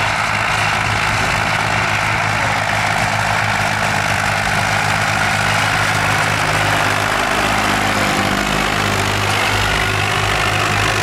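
Diesel engines of old farm tractors running steadily under way, a low even drone with a rattly engine noise over it.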